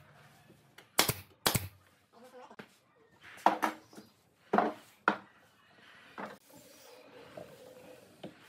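Pneumatic nail gun firing twice, about half a second apart, about a second in, driving nails into a wooden frame joint. This is followed by several wooden knocks and bumps as the frame is handled on the workbench.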